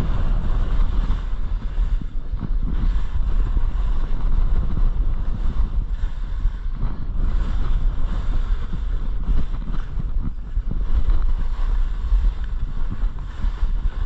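Wind rushing and buffeting over the microphone during a fast ski descent, with the skis scraping and carving on snow. The rush swells and dips unevenly throughout.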